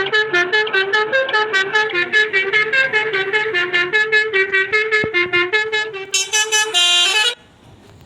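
Basuri 'telolet' multi-tone musical horn playing a fast melody of short, sharply separated notes, about five a second, ending with a held note that cuts off suddenly about seven seconds in.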